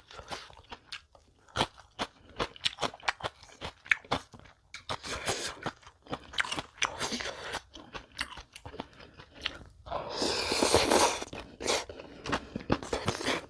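Close-miked chewing and crunching of food: a string of sharp, irregular crunchy bites, with a louder, longer noisy stretch about ten seconds in.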